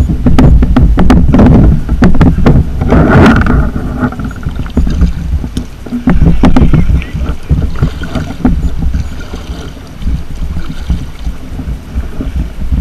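Kayak paddle strokes splashing in the water, with a run of sharp splashes and knocks in the first few seconds and a bigger splash a little after three seconds, quieter later. A heavy low rumble of wind on the microphone runs underneath.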